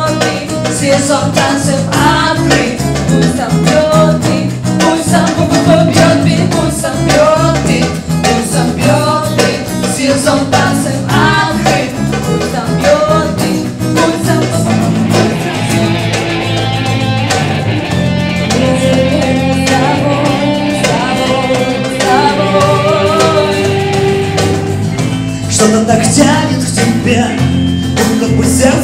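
A song: singing over acoustic guitar.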